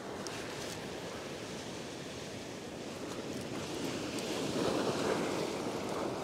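Ocean surf washing and breaking against a rock ledge. A wave swells louder about four seconds in, then settles.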